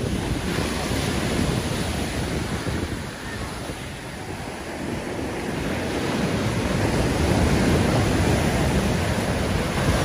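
Ocean surf breaking and washing up the beach, with wind buffeting the microphone. It dips about a third of the way in and builds again in the second half.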